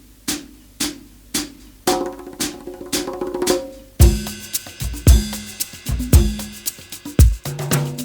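Background music: a drum beat, sparse hits about twice a second at first, building with added tones and then a full drum kit with heavy kick drum and bass coming in about halfway.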